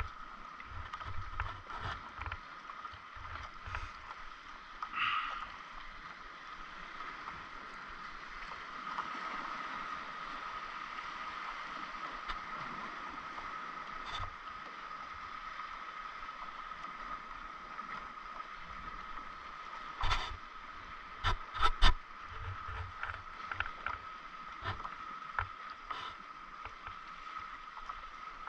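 Water lapping against a paddleboard, with a steady high tone underneath and scattered clicks and knocks from handling fishing tackle while tying on a jig head; the loudest knocks come in a quick cluster about twenty seconds in.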